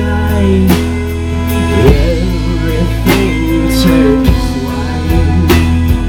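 Live band playing: fiddle, acoustic guitar and drum kit, with regular cymbal and drum hits under sustained, gliding fiddle notes.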